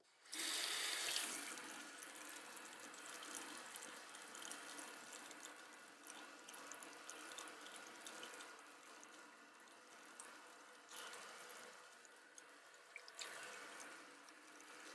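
Tap water running into a bathroom sink as an alum block is wetted under it, loudest for about the first second, then running softly with faint drips and small ticks.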